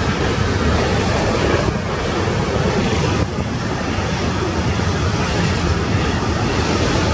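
Intermodal freight train's wagons rolling past close by: a loud, steady noise of wheels running on the rails.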